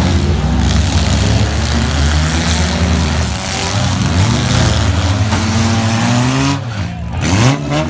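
Several four-cylinder demolition derby cars' engines revving at once, their pitches rising and falling as they accelerate and back off, with a sharp rev near the end.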